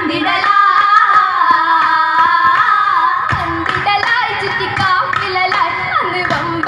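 Girls' voices singing a Mappila song for an Oppana dance, with rhythmic handclaps keeping time that grow stronger about three seconds in.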